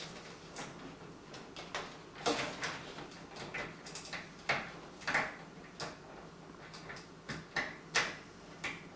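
Irregular sharp clicks, taps and short scraping rustles of cables and plastic and metal parts being handled and pushed into place inside a computer case.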